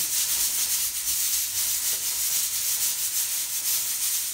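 Raw chicken pieces being pressed and rubbed into seasoned flour in a plastic container by hand: a steady, dry hissing rustle.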